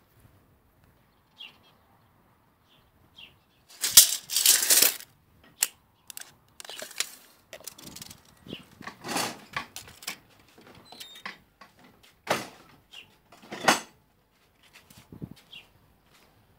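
Irregular bursts of rustling and handling noise close to the microphone, the loudest lasting about a second some four seconds in, with several shorter ones after.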